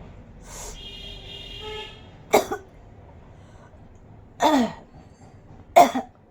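Three loud, sharp sneezes, each a short burst, the last two closer together.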